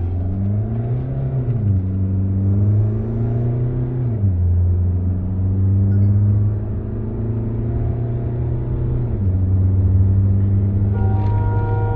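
Mahindra XUV700 accelerating hard at full throttle in a drag race, heard from inside the cabin. The engine note climbs and drops sharply at each of three upshifts, about two, four and nine seconds in. A steady multi-note tone comes in near the end.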